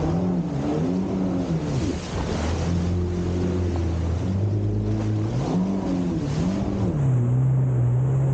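Jet ski engine running at speed, its pitch rising and falling with the throttle, over the rush of water spray and wind.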